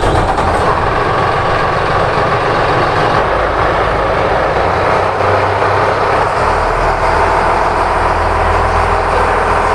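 Fishing boat's inboard diesel engine running, a very loud steady drone heard from below deck inside the hull.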